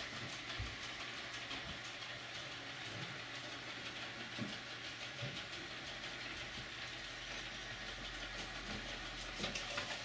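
ILIFE X5 robotic vacuum cleaner running steadily as it drives back to its charging dock: an even whirring hiss with a few faint clicks.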